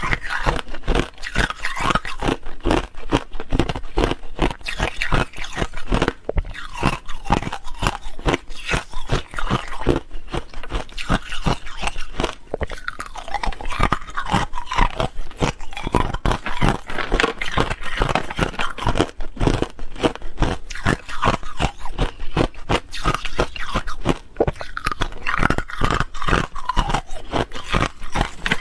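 Hard ice being bitten and chewed: a continuous run of sharp, crackling crunches.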